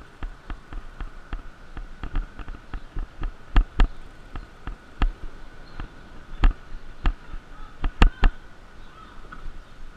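Mountain bike jolting over a rough dirt trail: irregular knocks and clacks of the bike rattling over bumps, the loudest about three and a half, five, six and a half and eight seconds in, over a faint steady high hum.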